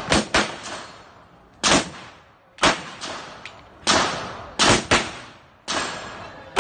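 Handgun fired in a practical-shooting course of fire: a string of about nine sharp shots, some in quick pairs and the rest about a second apart, each with a short echoing tail.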